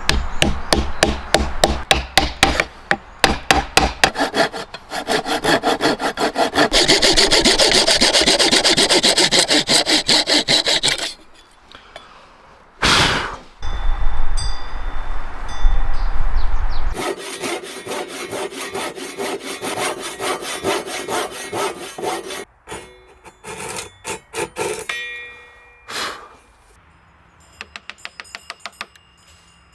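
Wood being sawn by hand in quick back-and-forth strokes, in runs with pauses, and a single sharp knock partway through.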